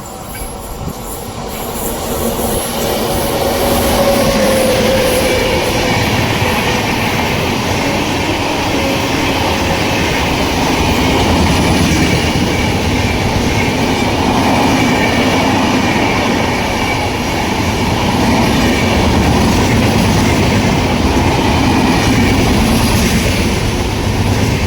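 Indian Railways express passenger train hauled by a WAP7 electric locomotive passing at speed, its coaches rumbling and wheels clattering over the rail joints. Louder over the first few seconds, then a steady rush as the coaches go by.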